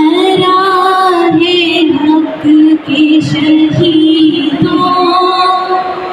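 A woman singing long held notes into a microphone through a PA system, with a live band's drum beats beneath.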